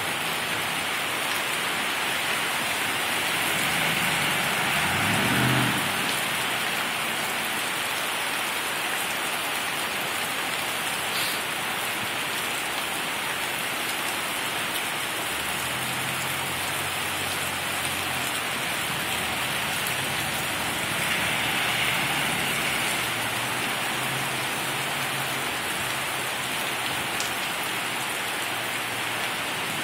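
Heavy rain pouring steadily on pavement and trees, swelling a little at times, with low rumbles of thunder about five seconds in and again through the second half.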